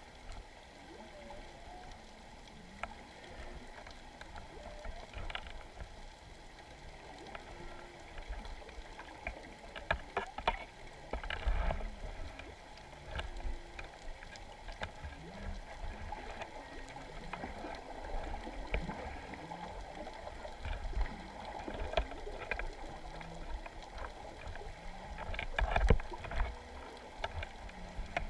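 Underwater sound picked up by a GoPro in its waterproof housing on the sea floor: a muffled low rumble of water with scattered clicks and knocks, the loudest knocks about ten seconds in and again near the end.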